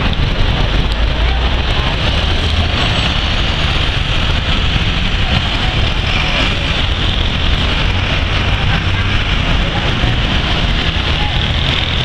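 Dense downtown traffic of city buses, cars and motorcycles, a steady low engine rumble under constant road hiss.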